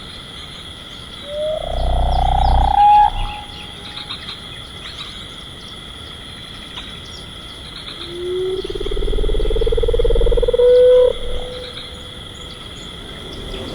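Two long animal calls, each rising steadily in pitch with a low rumble beneath, the first about a second in and the second about eight seconds in, over a steady high insect-like drone.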